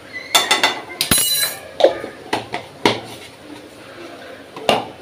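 A small metal spoon clinking and tapping against a spice container and the frying pan while black pepper powder is spooned in: a series of sharp clicks, with one ringing clink about a second in.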